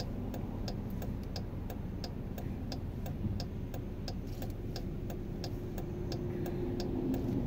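Car turn-signal indicator clicking steadily in alternating tick-tock pairs, about three clicks a second, over the low hum of the engine and road inside the cabin.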